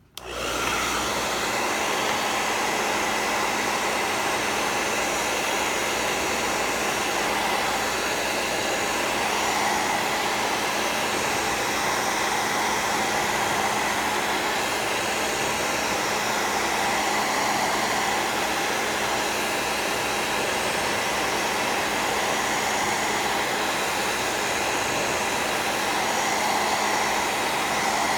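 Hair dryer running steadily on its medium setting, switched on at the very start, blowing warm air to shrink and seat a plastic screen protector around a watch's edges.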